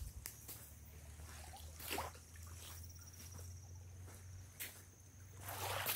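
Footsteps crunching on sand and dry leaf litter, a few irregular steps with the loudest near the end. A faint steady insect trill runs underneath.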